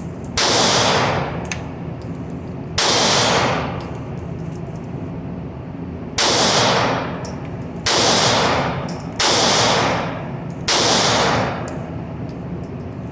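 Six shots from a small 9mm handgun, fired at uneven intervals, each report trailing off in a long ringing echo.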